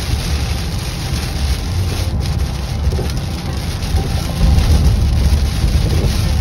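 Driving noise heard inside a vehicle's cabin on a rain-soaked highway: steady hiss of tyres and rain over a low rumble, stepping up in loudness about four seconds in.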